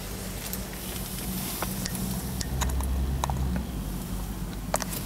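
Steady low hum inside a small truck's cab, swelling a little past the middle, with scattered light clicks from the gear lever and wiper stalk being handled.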